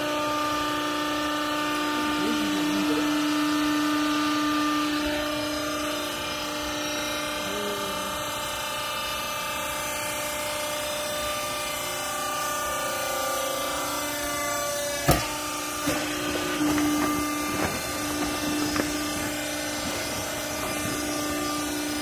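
Rag baling press's hydraulic power unit running with a steady hum. A single loud clunk comes about two-thirds of the way through, followed by a few lighter knocks.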